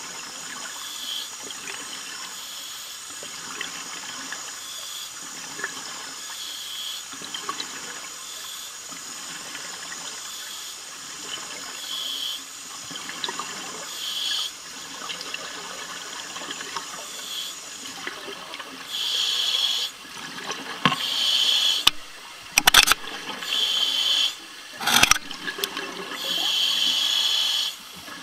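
Scuba regulator breathing heard underwater: a steady hiss with short puffs every second or two. From about two-thirds of the way through come several loud rushes of exhaled bubbles, each a second or two long, with a few sharp knocks among them.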